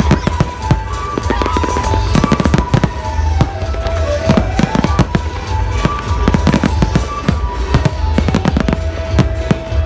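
Fireworks display: a dense run of sharp bangs and crackles over a steady low rumble, with music playing along with the show.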